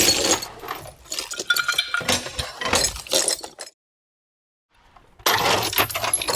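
Metal tools rattling and clinking against each other as a toolbox is rummaged through. The clatter stops dead a little past halfway, is silent for about a second, then starts again loudly near the end.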